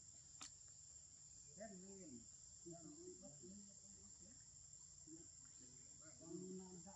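Faint, steady high-pitched chirring of forest insects, with faint distant voices murmuring twice and a single click just after the start.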